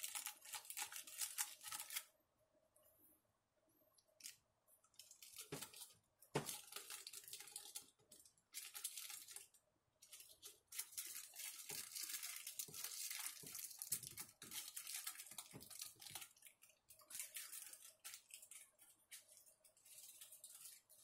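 Crinkling and scraping of a rolled stack of aluminium foil and plastic laminate sheets being shifted and pushed inside a PVC tube. It comes in irregular bursts, with a couple of sharp knocks about six seconds in.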